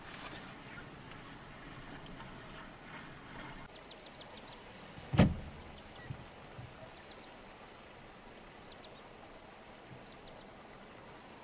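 A bird calls repeatedly with short, high, falling notes in quick runs of two to five, starting a few seconds in and coming every second or two. Before the calls there is a rushing noise, and a single loud thump about five seconds in is the loudest sound.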